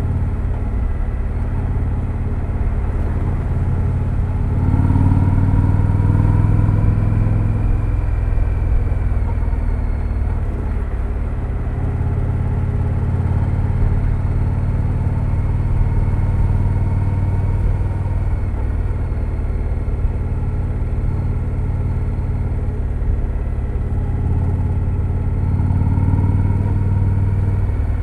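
2025 Indian Scout Sixty Bobber's V-twin engine running through its stock exhaust. The note swells louder twice, about five seconds in and again near the end.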